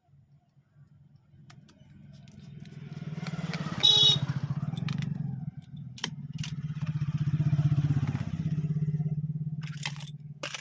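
A motor vehicle engine passes close by, rising and fading twice, with a short high-pitched beep about four seconds in.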